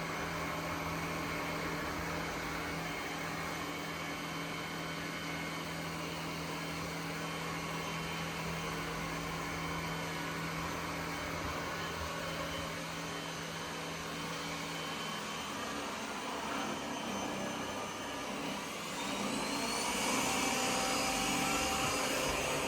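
ECOVACS DEEBOT N8 PRO+ robot vacuum running, a steady motor and suction whir with a low hum. About fifteen seconds in the hum changes. Near the end the whir rises in pitch and grows louder.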